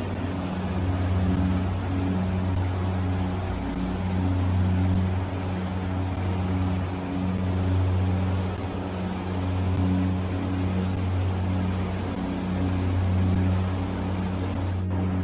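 Low mechanical hum over a steady hiss, swelling and dipping in a slow regular beat about every one and a half to two seconds.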